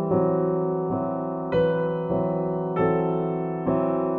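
Background music: a keyboard playing sustained chords that change every second or so.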